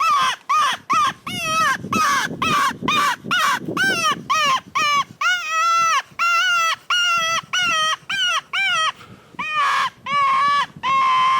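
Hand-blown predator mouth call giving a rapid series of squealing distress cries, each note rising and falling in pitch, about two to three a second with a brief pause near the end, used to lure coyotes in.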